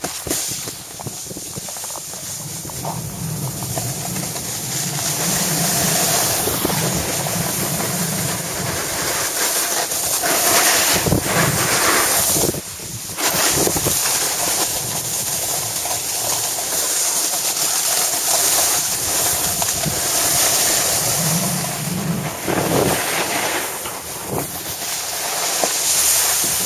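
Rush of wind on the microphone together with the hiss and scrape of a snowboard sliding over packed snow while riding downhill. It grows louder over the first few seconds as the board picks up speed.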